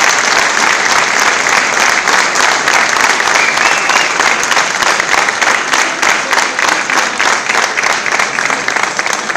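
A large audience applauding, a dense steady clatter of many hands clapping.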